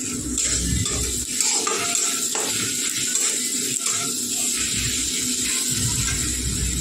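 Spatula stirring and scraping vegetables and spices around a kadai on a gas stove, in repeated short strokes over a steady hiss.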